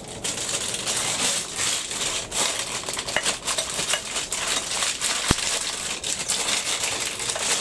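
Thin plastic wrapping crinkling and rustling as it is pulled off a planter stand's leg, with one sharp click about five seconds in.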